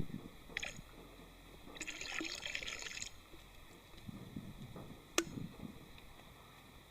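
Small water sounds of a pond being disturbed: splashing and dripping, with a brief hissing splash about two seconds in and a sharp click about five seconds in.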